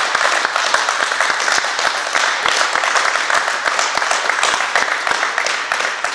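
A small group of people applauding, a dense run of hand claps that keeps up steadily.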